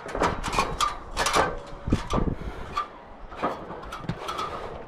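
A ladder being climbed: a string of irregular knocks and clanks from feet and hands on the rungs, busier in the first few seconds and then thinning out.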